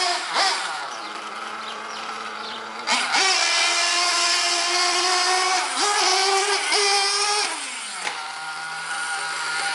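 Radio-controlled buggy's motor revving as it drives: quieter and lower at first, then a sharp rise to a high, steady whine about three seconds in with two brief dips, before falling back to a lower steady tone near the end.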